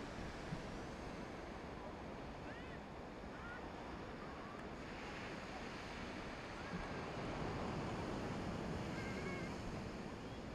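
Distant, rushing jet roar of an Airbus A320neo's Pratt & Whitney PW1100G geared turbofans at takeoff power as the airliner begins its takeoff roll, swelling a few seconds in. Faint bird chirps sound over it.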